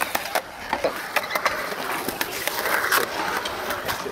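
Skateboard wheels rolling and carving over a concrete bowl, with scattered sharp clicks and clacks throughout.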